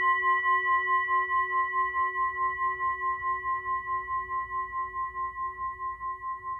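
A singing bowl ringing on after being struck: a few steady overtones with a wavering pulse of about five beats a second, slowly fading away.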